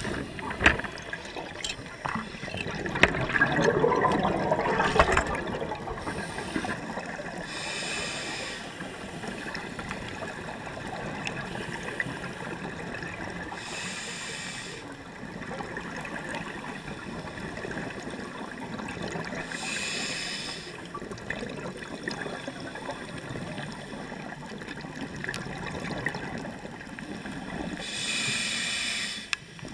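Scuba breathing heard underwater through a regulator: four short hisses roughly six seconds apart, and a loud rush of bubbles about three to five seconds in, over a steady underwater rush.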